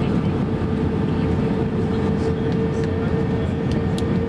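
Steady cabin noise inside an Airbus A321-231: an even engine drone with a steady hum running through it, and a couple of faint clicks near the end.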